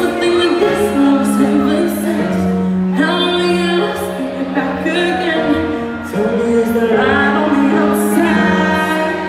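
Live pop music heard from the audience in a concert hall: a woman singing a melody over sustained band chords.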